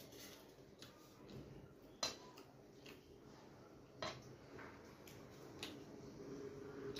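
Fingers working rice on a stainless-steel plate while eating by hand, with a few sharp clicks of hand or fingers against the steel, the loudest about two seconds in and another about four seconds in.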